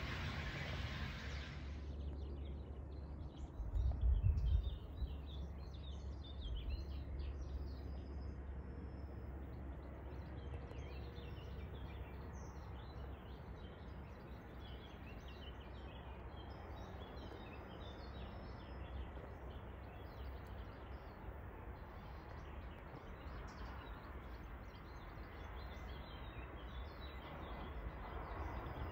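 Small birds chirping and singing over a steady low rumble of outdoor noise, with a short low thump about four seconds in. A broad noise cuts off about two seconds in, and near the end a broad noise swells again, like an aircraft drawing near.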